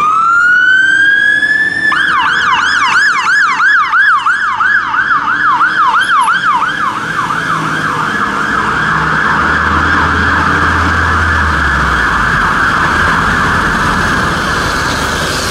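Fire engine's electronic siren starting up: a rising wail for about two seconds, then a fast yelp of roughly three to four sweeps a second, which after about five seconds blurs into a rapid, smeared warble. A low engine rumble swells briefly near the end.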